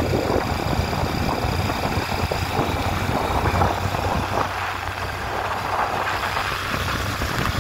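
A motor vehicle driving: a steady low engine and road rumble.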